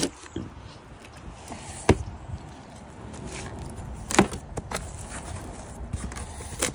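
Cardboard shipping box being opened and its contents handled: cardboard flaps and inserts rustling and scraping, with two sharp knocks, about two seconds in and again at about four seconds.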